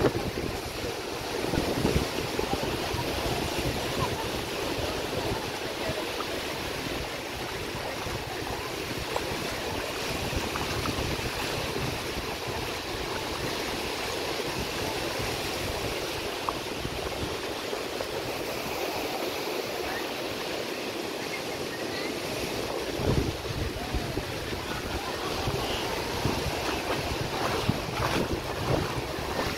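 Sea waves washing onto a sandy beach in a steady wash of surf, with wind buffeting the microphone in low rumbles.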